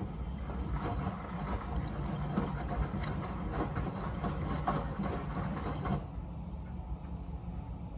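Miele W Classic front-loading washing machine in a wash phase, its drum turning wet laundry through water with a sloshing, rustling sound. The drum stops about six seconds in, leaving only a low steady hum.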